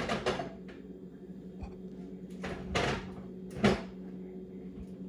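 Kitchen cupboard and dishes being handled: a short clatter at the start, another about two and a half seconds in, and a sharp knock near the end, over a steady low hum.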